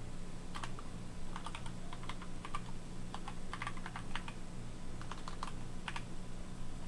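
Computer keyboard typing: irregular runs of quick key clicks with short pauses between them.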